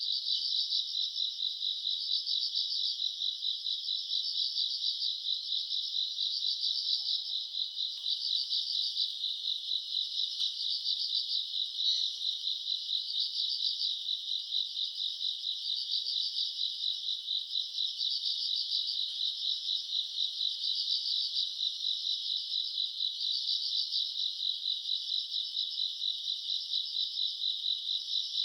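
Summer-night chorus of grass insects: a dense, high, continuous trilling made of a fast steady pulse, with louder chirp groups repeating about every two seconds.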